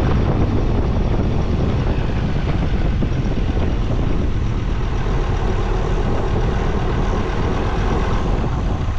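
Vehicle engine running steadily as it drives through soft, powdery sand.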